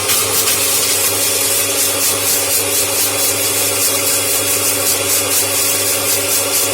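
Electric kitchen blender running at full speed, grinding peeled kencur (aromatic ginger) rhizomes with a little water. It is a loud, steady whir that does not change.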